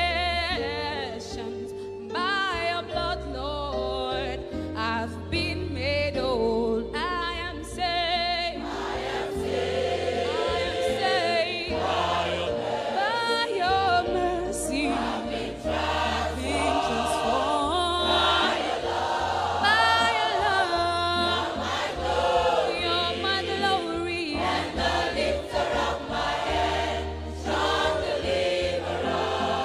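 Gospel choir music: voices singing with vibrato over a steady bass line, a thinner texture at first, the fuller choir coming in about nine seconds in.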